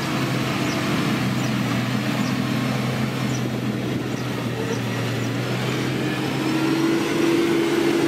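SDLG motor grader's diesel engine running steadily under load as the grader blades loose earth, growing louder about seven seconds in.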